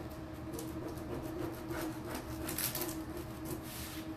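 A plastic-backed decor transfer sheet being rubbed down by hand, back and forth, as a run of short irregular swishes. Under it runs the steady hum of a heating system that is called extremely loud.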